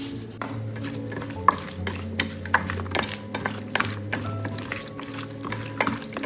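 Raw chicken wings being tossed and mixed by hand in a stainless steel bowl: irregular knocks and wet slaps of the meat against the metal, over background music.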